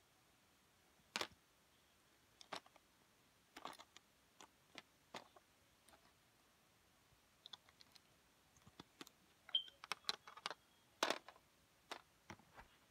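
Irregular faint clicks and taps of plastic Lego pieces and minifigures being handled on a baseplate, coming more often toward the end.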